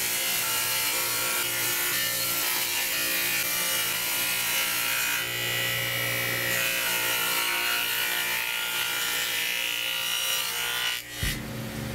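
Table saw running a Harbor Freight stack dado set, cutting a groove in plywood as the piece is fed along the fence: a steady blade whine over the noise of the cut. It breaks off with a thump near the end.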